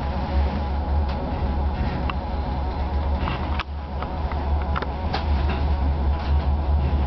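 Driver's cab of a DR1A diesel multiple unit under way: the diesel engine drones steadily with a buzzing hum, overlaid by scattered clicks and rattles. The level dips briefly about three and a half seconds in.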